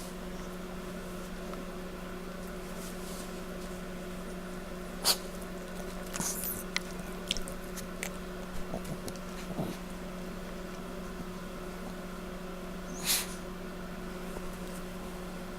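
A dog licking and nibbling at a pig's coat to groom it: scattered small wet clicks and smacks, with one louder short burst near the end.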